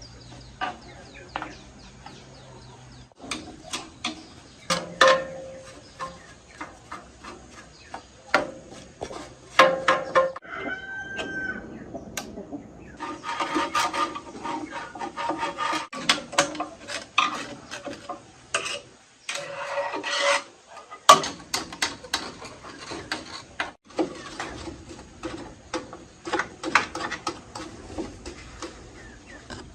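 Irregular scraping, rubbing and tapping from hand work on the parts of an old rice milling machine being restored. A rooster crows once, about ten to twelve seconds in.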